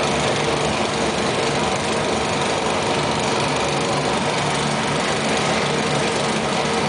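Graffenstaden 1720 1L vertical turning lathe running under power, its 30 kW drive motor and gearbox giving a steady mechanical hum as the table turns.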